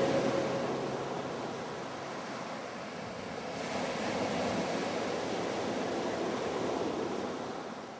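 Sea surf: a steady rushing wash of waves that swells a little past the middle and fades out near the end.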